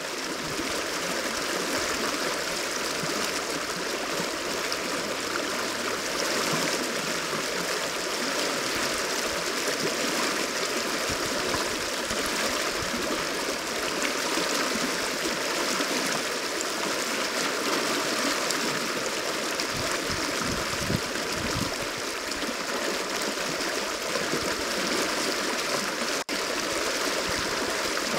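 A river flowing fast over broken, rippling shallows: a steady, even rush of water, with one very brief dropout near the end.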